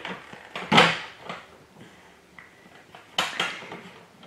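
Large plastic toy dump truck knocking and rattling against a wooden floor as it is tipped onto its side and pushed about: a few sharp knocks, the loudest about a second in and a pair more about three seconds in.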